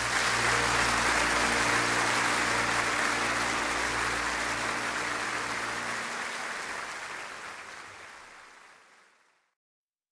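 Audience applause at the close of a live song recording, with the last held notes of the music faintly underneath for the first few seconds. The applause fades out gradually over about nine seconds into silence.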